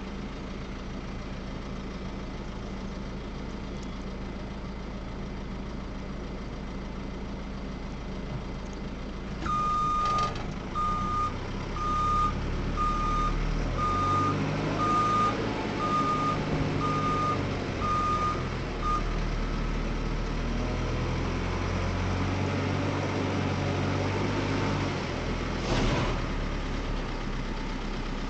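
JCB 3CX backhoe loader's diesel engine idling, then revving up about a third of the way in as a reversing alarm beeps about once a second for some nine seconds. The engine keeps working with rising and falling revs, and there is a single sharp knock near the end.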